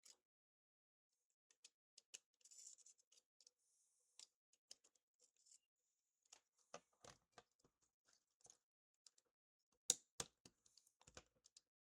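Faint scattered clicks and short scrapes of small hand tools working at the internal parts of an old iPhone being taken apart, with two sharper clicks about ten seconds in.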